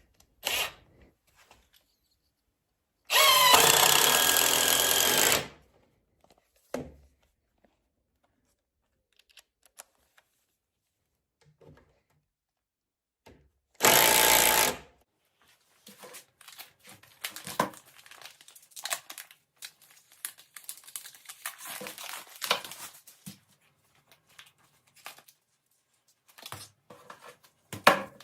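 Power drill running in short bursts: a brief blip, then a steady run of about two seconds, and another of about a second later on. Between and after the runs come scattered knocks and clatter of wood and tools being handled.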